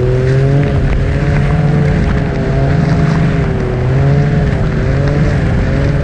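Ski-Doo Expedition SE 900 ACE Turbo snowmobile's three-cylinder turbocharged four-stroke engine running at a steady cruise, pulling through deep fresh snow, its pitch wavering slightly up and down with small throttle changes.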